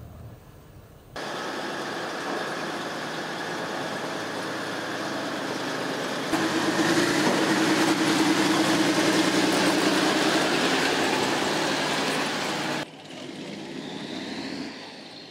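Tracked military vehicle on the move: steady engine and track noise that gets louder about six seconds in. It drops back abruptly near the end, where a faint rising whine is heard.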